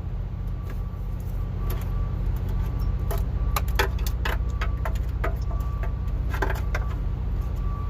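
Irregular small clicks and rattles of hands handling wiring and plastic steering-column parts while the turn signal switch is wired in, over a steady low hum.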